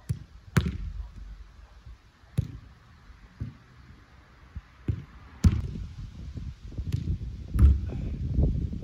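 A football being kicked in a passing drill on artificial turf: a series of sharp thuds at irregular intervals, about seven in all, from foot strikes and the ball rebounding off the pitch-side boards.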